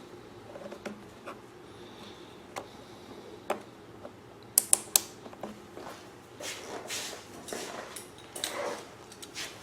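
Hands handling the fuel pump, rubber hoses and clamps: scattered small clicks, three sharp clicks in quick succession about halfway through, then rubbing and scraping.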